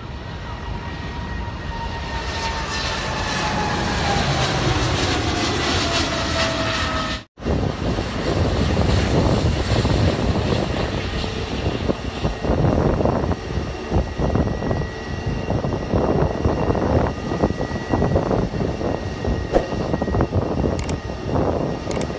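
Jet airliner passing low overhead on approach, its engine whine falling steadily in pitch as it goes by. After a sudden cut, a twin-engine wide-body airliner landing, its jet engine noise rough and fluctuating.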